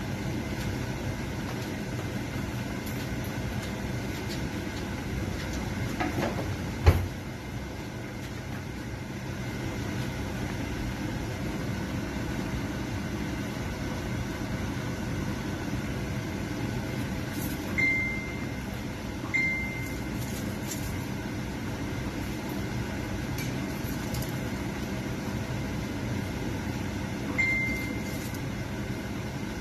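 A large pot of soup at a rolling boil on the stove: a steady low bubbling rumble. One sharp knock sounds about seven seconds in, and three short high tones come in the second half.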